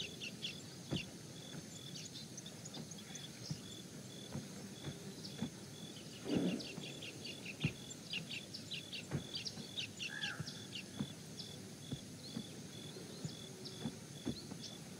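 Outdoor nature ambience: birds chirping in many short high calls over a steady, pulsing high-pitched trill, with a brief lower sound about six seconds in.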